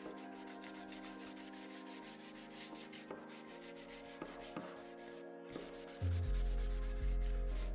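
A cloth pad rubbed quickly back and forth along a wooden axe handle, in fast, even strokes. Background music plays underneath, with heavy bass notes coming in about six seconds in and taking over as the loudest sound.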